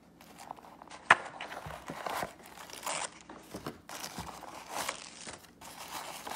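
Tissue paper crinkling and rustling in irregular bursts as packing stuffing is pulled out of a leather bag, with one sharp click about a second in.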